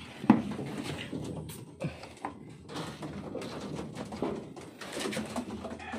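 Racing pigeons cooing softly in a wire-mesh loft, with several sharp knocks and clatters. The loudest knock comes about a third of a second in.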